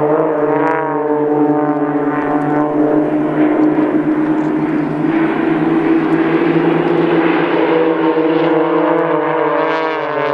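Several Extra 300 aerobatic planes flying in formation overhead. Their propellers and six-cylinder Lycoming engines drone together as a layered, steady hum whose pitch drifts slowly up and down.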